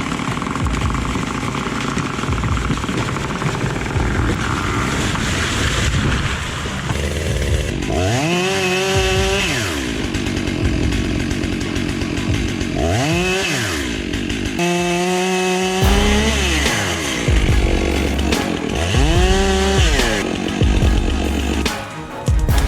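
Chainsaw cutting through wood, then revved up and down several times, its pitch rising and falling about four times in the second half.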